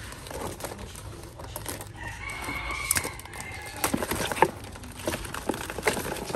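A rooster crows once, a held call of about a second, starting about two seconds in. Sharp clicks and knocks come thickly from about halfway through.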